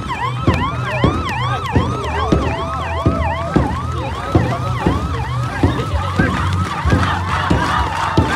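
Electronic siren sounding a rapid yelp, its pitch rising and falling about two and a half times a second, steady and loud throughout.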